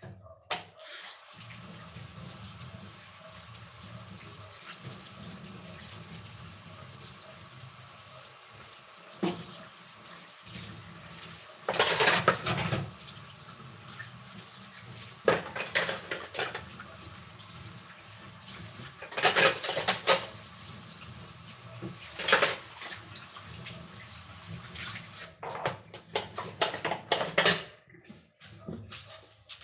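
Tap water running steadily into a sink while dishes and cutlery clatter in several short bursts; the running water stops near the end.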